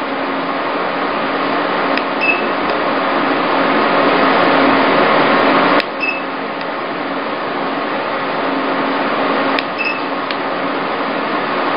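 MED-230 E-light (IPL + RF) machine running with a steady whirring hiss. Its IPL handpiece fires three times, a sharp click about every four seconds, each followed by one or two short high beeps, and the hiss dips briefly after the second and third clicks.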